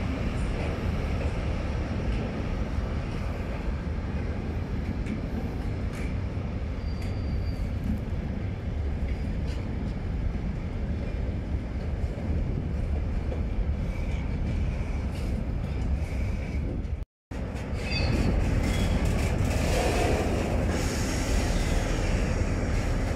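Freight train of open gondola wagons rolling past at close range: a steady rumble of wheels on rails with scattered clicks over the rail joints. The sound cuts out for a split second about seventeen seconds in.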